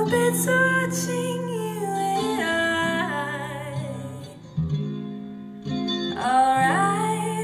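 Live song: a woman singing long, held notes with vibrato over electric guitar chords, with a brief lull in the middle before her voice comes back in strongly.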